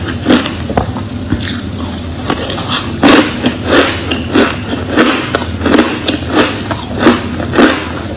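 Crushed clear ice being crunched between the teeth close to the microphone: a run of sharp crunches about one and a half a second, softer for a couple of seconds after the start, then steady and loud.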